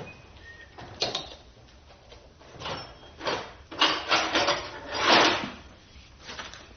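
Ford 351 Windsor engine parts and tools being handled during a teardown: a string of short clunks and scrapes, the loudest about five seconds in.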